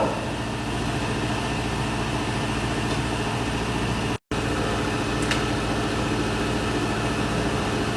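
Steady drone of running machinery: a low hum with several steady tones over it. The sound cuts out completely for a moment about four seconds in.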